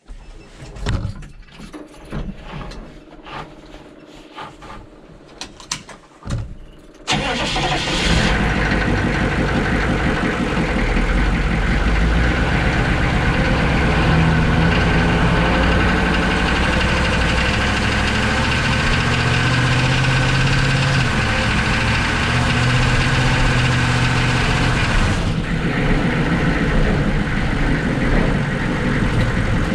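Scattered clicks and knocks, then about seven seconds in a loud truck engine sound starts abruptly and carries on. It is heard close to the exposed, spinning torque converter of a 4L80E automatic transmission with its bell housing removed. Its pitch rises and falls as the truck is driven.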